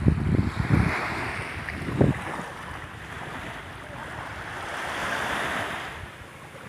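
Small sea waves washing in the shallows, with wind buffeting the microphone in gusts during the first second. A single thump comes about two seconds in.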